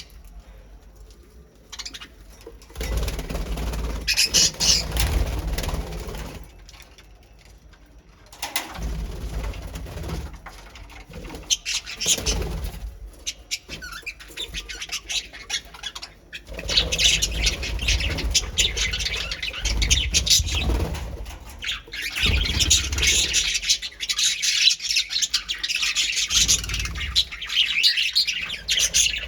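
A colony of pet birds chirping together in bursts, the chirping thickening into a near-continuous chatter in the second half, with bouts of low rustling among the birds.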